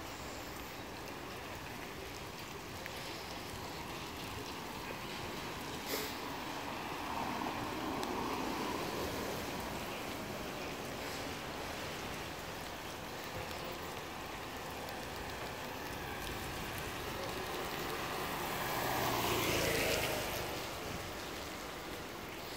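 Steady outdoor wash of rain and wind on wet pavement, swelling louder about seven seconds in and again more strongly near the end, with one sharp knock about six seconds in.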